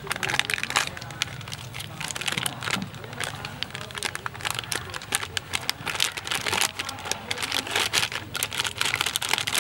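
Foil snack-style packet crinkling and crackling as hands squeeze and shake it to empty powdered flour mix into a bowl, in dense irregular crackles.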